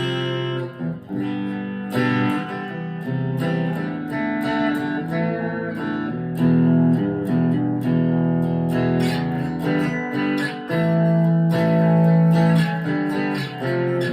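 Chapman ML3 Pro Thinline electric guitar played through an amp's clean channel with its two pickups in parallel, a run of strummed chords and picked notes with a dark, meaty tone.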